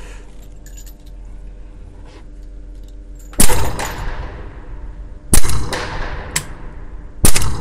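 Edgun Leshiy 2 semi-automatic PCP air rifle in 6.35 mm firing three shots about two seconds apart. Each is a sharp report with a ringing tail of echo.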